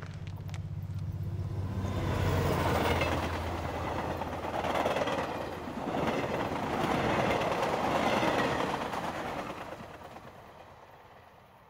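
A train passing: a low hum at first, then a rushing noise that builds over about two seconds, stays loud with a couple of surges, and fades away near the end.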